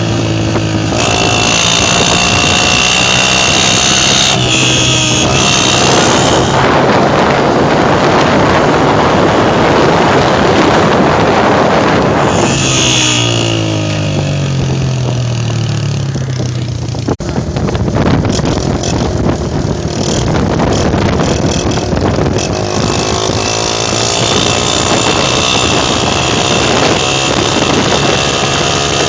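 Honda CG 125 single-cylinder four-stroke engine running through a modified older-style silencer, revving and rising in pitch as the bike accelerates, with wind noise on the microphone.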